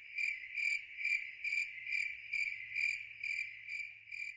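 A cricket trilling: a steady, high-pitched chirping trill that swells and fades about twice a second.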